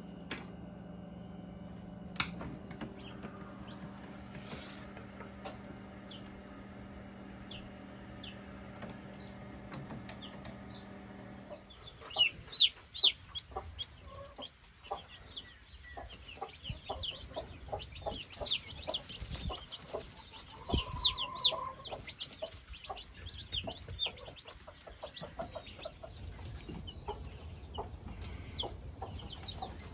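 Newly hatched chicks peeping. At first a few faint high peeps sound over a steady low hum. About twelve seconds in, the hum stops and many chicks peep busily, with small knocks among the peeps.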